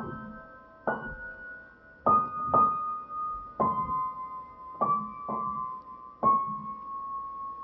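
Slow, high-pitched keyboard melody: single notes struck roughly once a second, each ringing on, the last note held for the final second or so.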